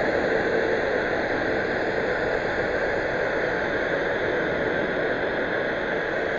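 Sci-fi sound effect: a steady, unbroken rushing noise with faint hiss bands above it, holding level without change.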